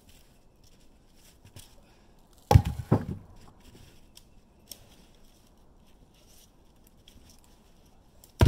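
Firewood logs being tossed down, landing with heavy wooden thuds: two about half a second apart a little over two seconds in, and another sharp one at the very end.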